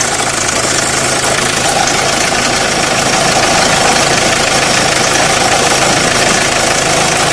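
Renault Clio 1.5 dCi diesel engine idling with the shaking noise the owner hears only at idle, which goes away once the engine is above about 1200–1300 rpm. A mechanic suspects, without being certain, that it comes from the belt tensioner.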